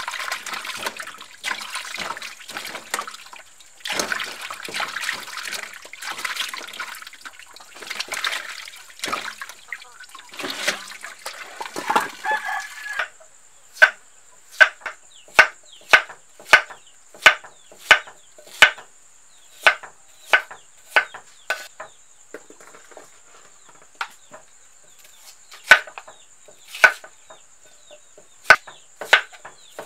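Peeled tubers rubbed and rinsed by hand in a metal basin of water, splashing and sloshing for about the first thirteen seconds. Then a kitchen knife chops through them onto a wooden cutting board: sharp, regular strikes, a little more than one a second.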